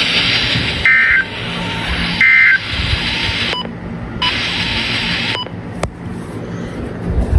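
NOAA Weather Radio over a receiver: steady static hiss with two short, shrill bursts of SAME digital data tones about a second apart, the end-of-message code that closes the weekly test. The hiss then cuts out twice.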